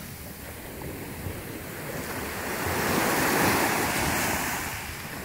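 Small sea waves washing onto the beach, one wash swelling about two seconds in and easing off near the end, with wind rumbling on the microphone.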